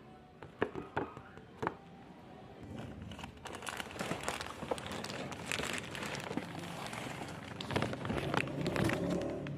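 Packaging being handled and opened, crinkling and rustling, with a few sharp clicks in the first two seconds.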